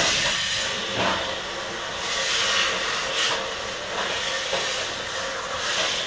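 Steady hissing noise from restaurant kitchen machinery, with irregular louder swells of hiss.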